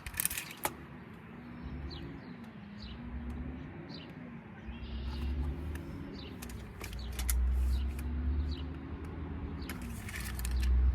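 A distant engine droning steadily, its pitch wavering slowly up and down, with low rumbling that swells in the second half and a few small clicks and bird chirps.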